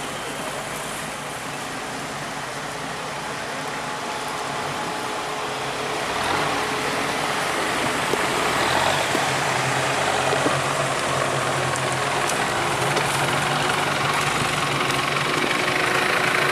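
A 4x4 off-road vehicle's engine running steadily, getting louder about six seconds in.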